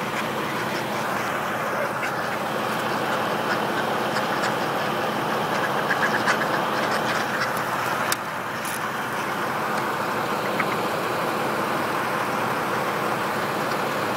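Truck engine idling steadily, with a few duck quacks from the flock around six seconds in.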